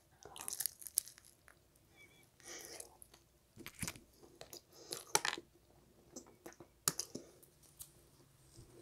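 A person biting into and chewing a slice of pizza close to the microphone: scattered quiet crunches and mouth clicks with short pauses between them.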